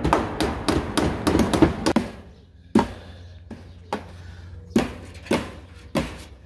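Hammer striking nails into a wooden post of a wire-mesh chicken run: a quick run of light taps at first, then slower, separate sharp blows about one every half second to second.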